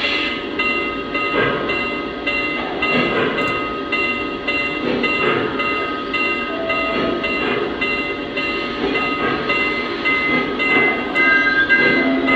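Lionel Vision Line Norfolk and Western Class A O-scale model's Legacy sound system playing steam locomotive running sounds, with a steady repeating rhythm.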